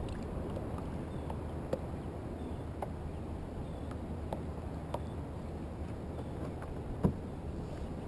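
Small waves lapping against a sit-on-top fishing kayak's hull, a steady low wash with scattered light taps and one sharper knock about seven seconds in.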